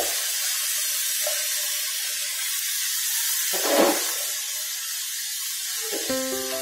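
Steady hiss of rice and chicken in broth heating in a wok, with a metal spatula stirring and scraping through it briefly about three and a half seconds in. Background music comes in near the end.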